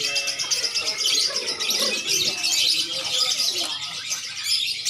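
Many caged lovebirds and oriental magpie-robins (kacer) chirping and singing at once, a dense chatter of high trills and chirps that never lets up.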